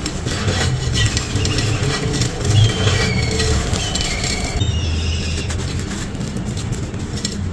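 Dry sand-cement crumbles being crushed and rubbed between bare hands in a terracotta claypot: continuous gritty crunching and grainy rustling over a low rumble.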